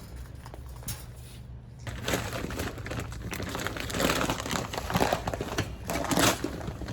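Crinkling, rustling noise that starts about two seconds in and grows denser, over a low steady hum.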